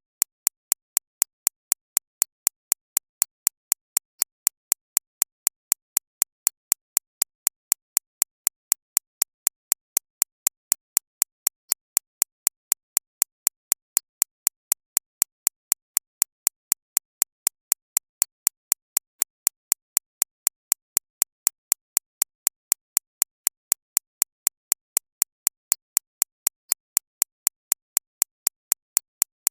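Computer-synthesized recreation of a shockwave therapy (ESWT) machine's impacts: sharp clicks repeating evenly about three times a second, strongest in the high treble.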